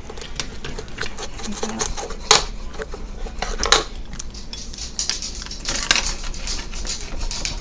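Clinks, clicks and knocks of cutlery and dishes on a table while pizza is being cut and served, several sharp clicks scattered through, the loudest a few seconds in.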